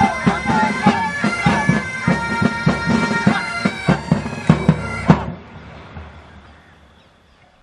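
Pipe band playing: bagpipes with their steady drones under the melody, and regular drum beats. The band stops together on a final beat about five seconds in, and the sound dies away.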